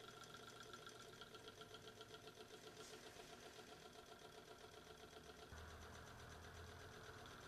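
Wiggers Stirling engine, a small German-made hot-air model engine, running steadily: a faint, quick, even ticking from its pistons and linkage as the flywheel turns. A low hum joins about five and a half seconds in.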